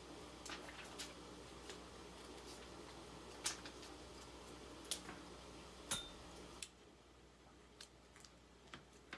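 Faint crinkles and small clicks of cellophane being folded and pressed around a small wooden art block in the hands. Three sharper snaps come about three and a half, five and six seconds in.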